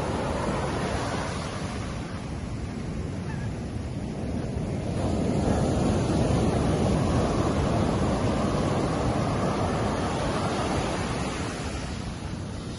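Ocean waves breaking on a sandy beach, a steady rushing wash that swells to its loudest about five seconds in as a wave breaks and runs up, then eases back near the end. Wind on the microphone adds a low rumble.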